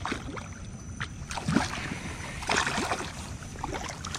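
A large hooked trout thrashing and splashing at the water's surface as a landing net is scooped under it, in a few short splashes, the biggest about one and a half seconds in and again from about two and a half to three seconds in.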